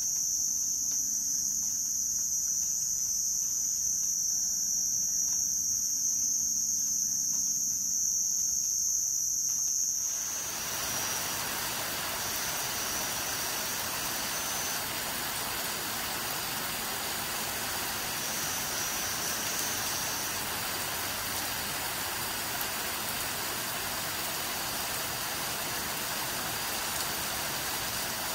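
Night insects trilling in one steady high note over otherwise quiet surroundings. About ten seconds in the sound cuts abruptly to the steady hiss of rain, with the insect trill faint beneath it.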